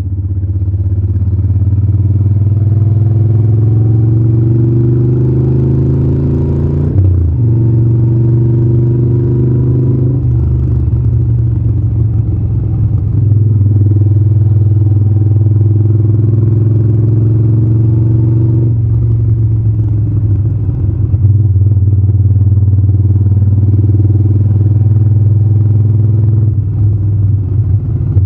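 Moto Guzzi California 1400's air-cooled V-twin engine running under way. The engine note climbs for several seconds, drops abruptly about seven seconds in, then runs fairly steadily with a few more shifts in pitch.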